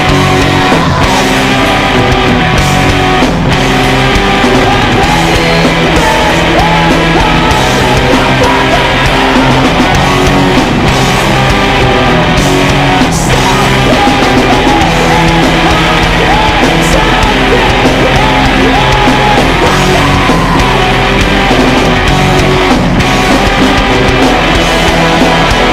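Loud rock music with distorted guitars, a steady beat and a singing voice.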